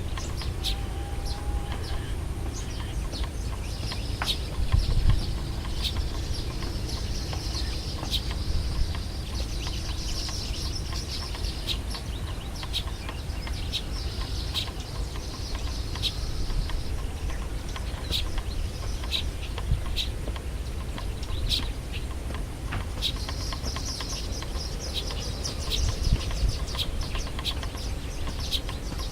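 Birds chirping: many short high chirps, several a second, over a steady low rumble.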